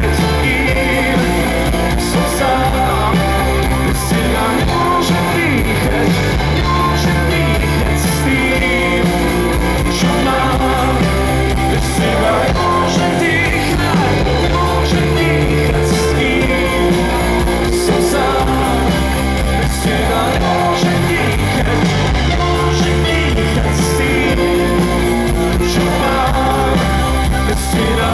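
Rock band playing live through a stage PA: electric guitars, bass, drums and keyboards in a steady, loud passage of the song.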